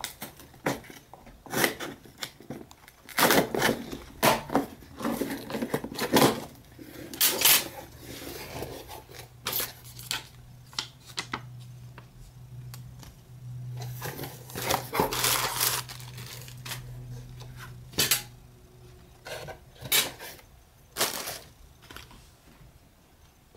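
Package-opening handling noises: scissors cutting through packing tape on a cardboard box, the cardboard flaps pulled open, and plastic air pillows and a plastic blister pack handled, a long run of sharp clicks, scrapes and rustles that thins out near the end.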